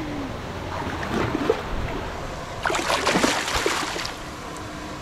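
Water splashing in one short burst about three seconds in, over a steady low outdoor background.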